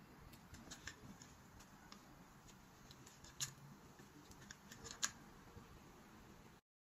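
Near silence: faint room tone with scattered small clicks, a sharper click about halfway through and another about five seconds in. The sound cuts off abruptly near the end.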